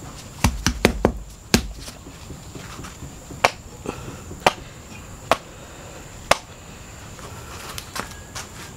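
Green bamboo tube knocking against a metal tray as cooked fried rice vermicelli is shaken out of it: a quick run of sharp knocks about half a second in, then single knocks roughly once a second, fading out near the end.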